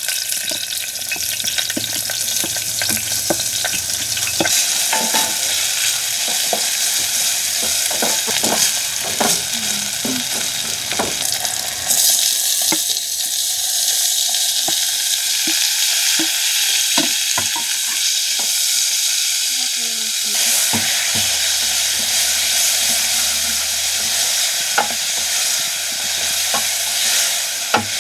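Food frying in hot oil in a pan, a steady sizzle over the whole stretch, with scattered clicks and scrapes of stirring.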